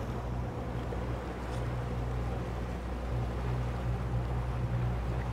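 Boat engine running steadily while the boat is under way, a low even hum with wind and water noise over it.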